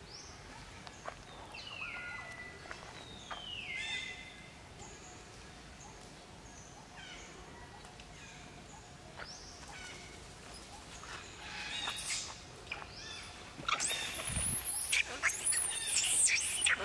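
Long-tailed macaques screaming during a fight: shrill, wavering screams break out about 13 seconds in and are the loudest part. Earlier, two short falling calls are heard in the first few seconds.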